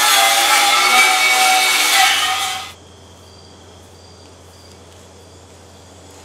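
A hand-held corded power tool runs against the bare steel of a tractor frame, rough and scraping with a slightly wavering pitch as it strips the metal. It cuts off about two and a half seconds in, leaving faint crickets chirping in short, evenly spaced chirps.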